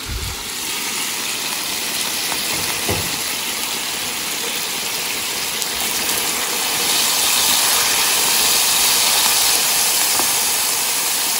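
Mutton in its cooked-down liquid sizzling and bubbling in a wok, a steady hiss that swells about seven seconds in, while a spatula stirs through it. A low thump comes right at the start as the lid comes off.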